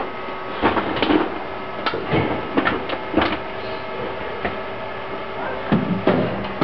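Scattered knocks and thuds of cricket balls and bats in an indoor cricket net, over a steady hum. The strongest knocks come about a second in and again near the end.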